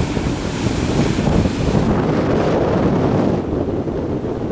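Wind buffeting the microphone over ocean surf breaking and washing up a sandy beach. The higher hiss drops away about three and a half seconds in.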